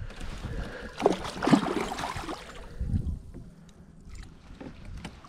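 Hooked striped bass thrashing and splashing at the water's surface beside a kayak, loudest in the first two seconds or so, then dying down.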